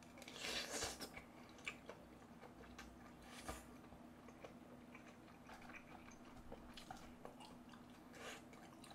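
Person eating mala tang noodle soup: a slurp from the spoon in the first second, then faint chewing with small wet clicks and mouth noises.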